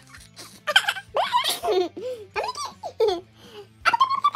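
A toddler laughing in a string of short giggles and squeals.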